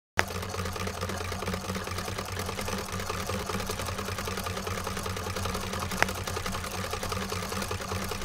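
Recorded sewing machine running steadily with a fast mechanical chatter over a low motor hum, coming in suddenly with a click. There is a second sharp click about six seconds in.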